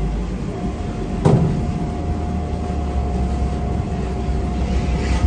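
Steady low drone of car wash machinery with a constant thin whine over it, and a single knock about a second in.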